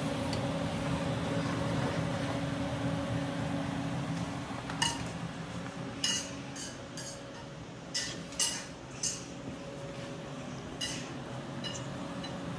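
Kitchen clatter: sharp clinks and knocks of utensils, pans and dishes, about nine of them scattered through the second half, some with a short metallic ring, over a steady low hum.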